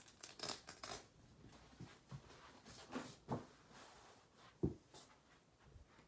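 A rolled foam yoga mat being handled: its strap is undone with a quick run of scraping noises, then the mat is unrolled onto carpet with several soft thumps and scuffs, the loudest about three-quarters of the way through.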